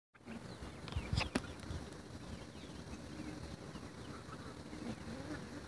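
A flock of young chickens, with a turkey among them, softly clucking and calling while feeding, with a few sharp knocks about a second in.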